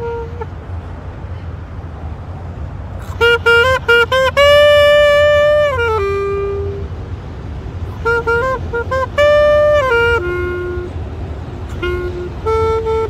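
Low clarinet played solo in an improvised line: quick runs of short rising notes leading into a long held note that then drops to a lower one. The phrase comes twice with pauses between, and short lower notes end it. A steady low rumble runs underneath.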